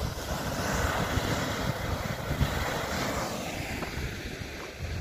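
Wind buffeting the microphone in gusts, with the hiss of surf washing over the rocky shore for the first three seconds or so.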